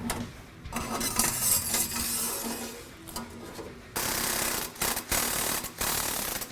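Stainless exhaust pipe scraping and rubbing as it is worked over the X-pipe joint, metal sliding on metal. There are two stretches of rasping noise, the second starting abruptly about four seconds in.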